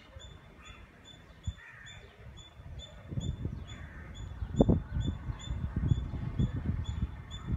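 Outdoor ambience: wind buffeting the microphone in irregular gusts, with crows cawing now and then. A faint high ticking repeats about two or three times a second throughout.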